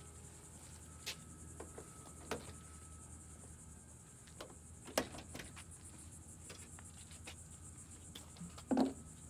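Crickets chirping steadily in the background, with a few scattered clicks and knocks: a sharp one about five seconds in and a heavier thump near the end.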